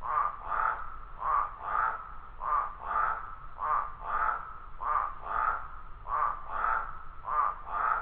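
Frogs croaking in harsh, rasping calls. The calls come in pairs, about half a second apart, and a pair repeats about every 1.2 seconds, over a steady faint background tone.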